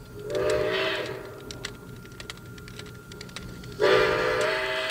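Hand-cranked tin toy train: rapid clicking from the crank mechanism as the train runs round its track, with a chord-like toy whistle sounding for about a second near the start and again, louder, about four seconds in.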